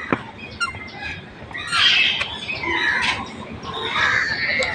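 Birds squawking: a run of harsh calls, loudest about two seconds in and again near the end.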